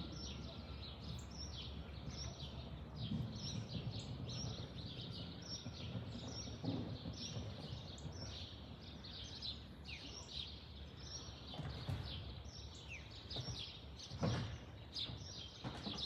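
Small birds chirping constantly in quick, repeated downward chirps, over a low steady rumble from a Boeing 787-10 jet airliner passing overhead. There are a few low thumps late on.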